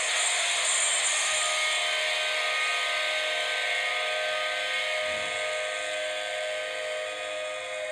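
Outro of a rock band recording: a sustained drone of steady held tones over a noisy wash, slowly fading.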